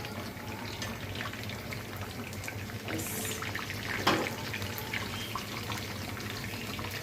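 A whole chicken deep-frying in hot soybean oil in a kadai, the oil sizzling steadily, with a few light clicks and knocks around three and four seconds in.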